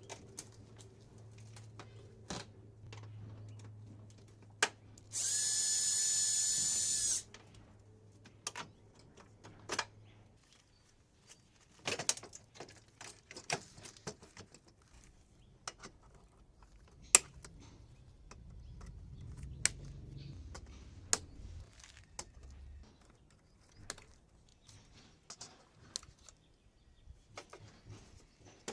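A power drill/driver runs in one steady whine for about two seconds, about five seconds in, backing out screws. Sharp clicks and knocks of metal parts and screws being handled are scattered through the rest.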